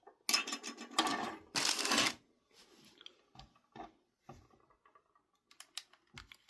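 Small metal screws and plastic controller parts rattling and clicking as they are handled, a dense rattle for about two seconds, then scattered light clicks and taps.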